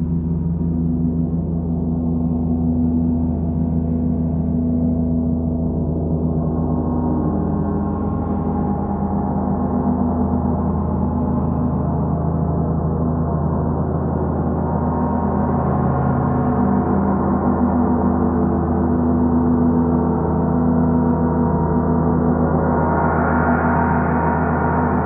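Three large gongs on stands played continuously, giving a sustained, shimmering drone of many overlapping tones with no sharp strikes. The upper overtones swell brighter a few times, most of all near the end.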